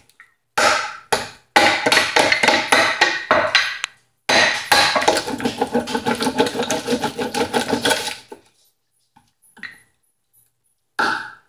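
Wooden rolling pin rolled hard back and forth over a giant hard-candy lollipop in a plastic bag on a marble counter, giving a fast, rattling run of knocks with brief pauses, crushing the candy into chunks. Near the end come two short single thumps as the pin is pounded end-down onto the candy.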